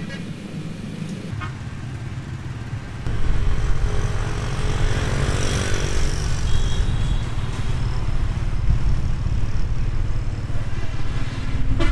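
Motorbike and car traffic on a town street, with a steady low rumble that grows louder about three seconds in. Near the middle one vehicle passes close, its hiss swelling and then fading.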